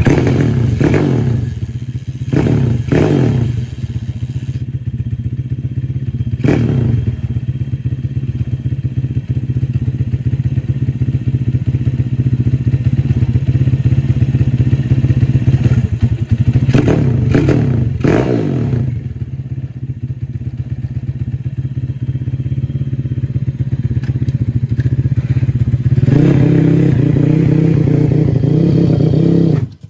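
Small single-cylinder four-stroke pit bike engine running at idle, blipped up and back down with short throttle revs several times. Near the end it is held at higher revs as the bike pulls away.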